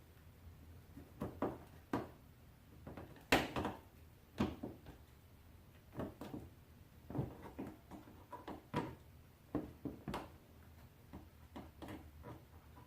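Irregular clicks and knocks of plastic parts being handled: push-pin clips and a plastic splash guard being worked into place at a car's wheel well. One sharper knock stands out about three seconds in.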